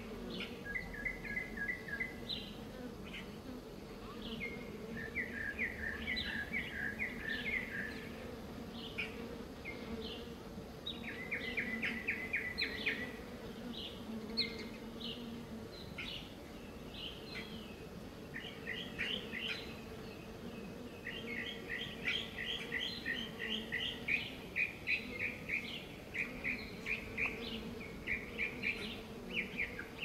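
Honey bees buzzing at the flowers, a steady low hum, while small birds chirp and trill in quick runs of repeated notes, the birdsong growing almost continuous in the second half.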